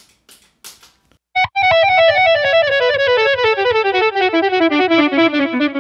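Electric guitar through a Line 6 Helix playing a fast descending lead run, each note repeated by a tap-tempo delay so the notes pile up in a cascading wash. It comes in suddenly about a second and a half in, after a few soft clicks.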